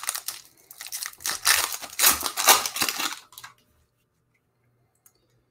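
Foil wrapper of a 2020 Panini Contenders Draft Picks football card pack being torn open and crinkled by hand, stopping about three and a half seconds in.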